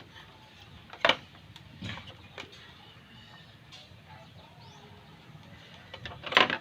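A few sharp clacks of small hard objects being handled and set down during a small electronics repair, the loudest about a second in and near the end, with faint birdsong in the background.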